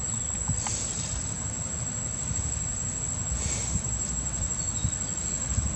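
Insects droning in a steady high-pitched whine, with louder hissing swells about a second in, again about three and a half seconds in, and briefly near the end; a low rumble runs underneath.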